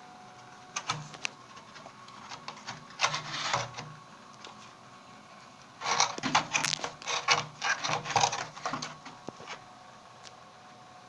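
Water heater making the noise of its fault: irregular bursts of rattling, crackling clicks, loudest in a long run from about six seconds in, over a faint steady hum.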